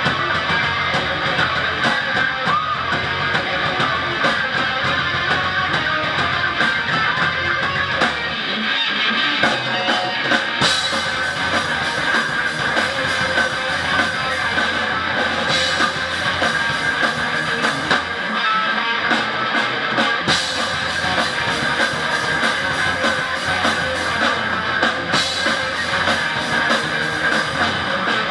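Heavy metal band playing live: electric guitars, bass guitar and drum kit, loud and continuous.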